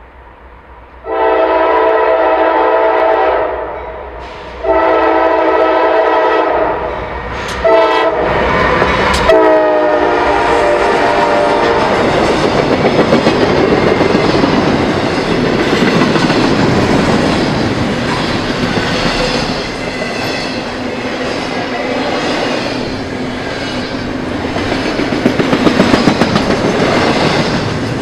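A CSX freight locomotive's multi-chime air horn sounds two long blasts, a short one and a final long one, the grade-crossing signal, as the train approaches. Then the locomotives go by and the double-stack intermodal cars roll past with a steady rumble and clattering wheels on the rails.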